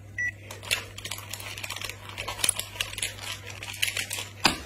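A 3×3 Rubik's cube being turned fast by hand. Its plastic layers click in a quick, irregular rattle that starts about half a second in.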